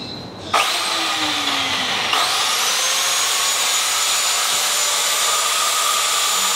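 TOTAL electric biscuit jointer switched on about half a second in, its motor spinning up to speed, surging again about two seconds in, then running steadily with a high whine.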